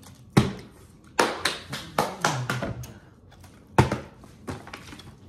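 A plastic water bottle being flipped and landing on a hard kitchen countertop: a sharp knock about half a second in, another about a second in, and a third near four seconds, with lighter taps between.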